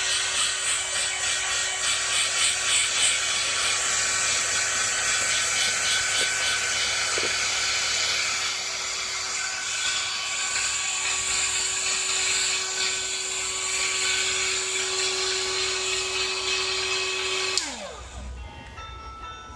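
Hair dryer blowing steadily with a constant motor whine, switched off about 17 seconds in, its pitch sliding down as the motor winds down. Music with bell-like tones follows near the end.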